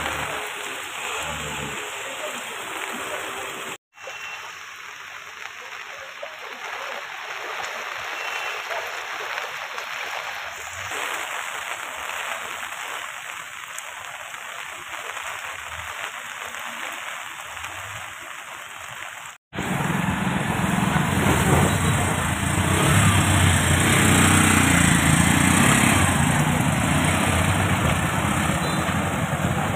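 Steady rain and water noise over a flooded street. About two-thirds of the way through, it switches abruptly to the louder, steady running of small vehicle engines: a motorcycle and an auto-rickshaw moving through floodwater.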